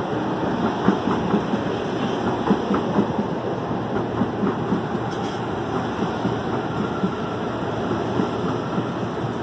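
CPTM electric commuter train rolling past at the platform: a steady rumble with its wheels clacking over the rail joints in an irregular run of clicks. A faint thin whine joins in during the second half.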